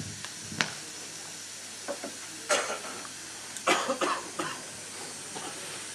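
A person coughing a few times, between about two and a half and four and a half seconds in, with a short knock about half a second in, over a steady hiss of room noise.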